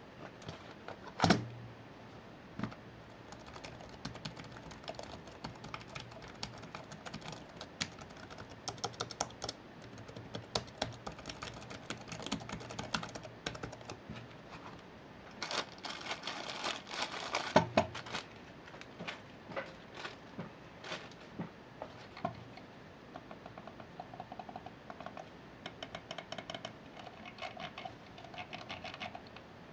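Many quick, irregular clicks and taps, like fingers on keys, with a louder knock about a second in and a low hum under the first half.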